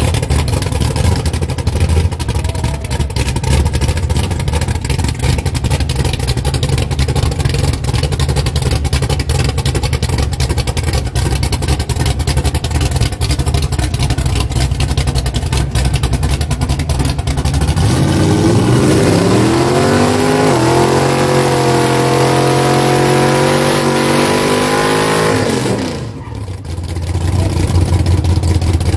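A burnout car's engine idling with a rough rumble, then revving up about eighteen seconds in and held at high revs for about seven seconds before dropping back to idle.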